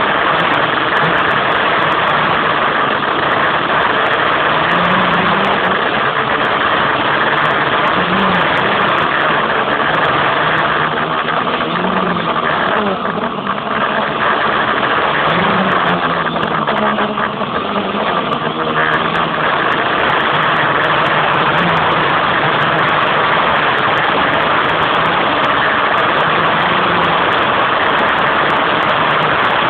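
Quadcopter's electric motors and propellers running in flight, heard loud through a phone's microphone. A steady buzzing drone whose pitch shifts up and down as the motors change speed, easing off briefly a couple of times midway.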